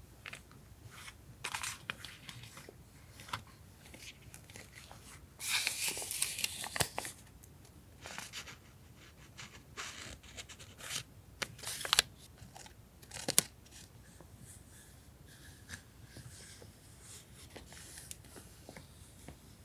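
Stationery items and their paper and plastic packaging being handled: intermittent rustling and crinkling, a longer burst of crinkling or tearing about six seconds in, and a few sharp taps and clicks.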